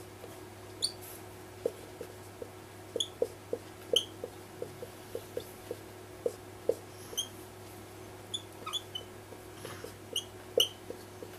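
Whiteboard marker squeaking and ticking against the board as an equation is written: short, irregular squeaks several times a second, over a faint steady hum.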